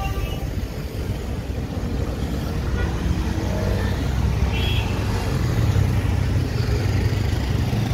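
Steady road-traffic noise with a deep engine rumble.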